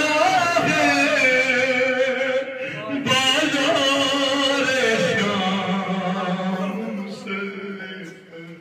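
A man's solo voice singing a noha, a Shia Urdu lament, into a microphone in long, slow, wavering held notes. A new phrase begins about three seconds in, slides down and is held on a low note, fading near the end.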